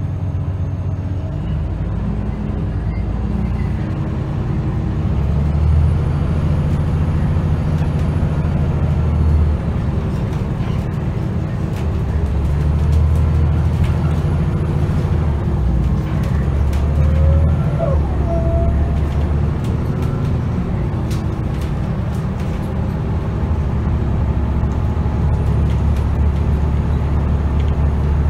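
Scania L94UA city bus's diesel engine and ZF automatic transmission under way, heard from inside the passenger cabin at the rear. The engine note rises and falls several times as the bus pulls and eases off.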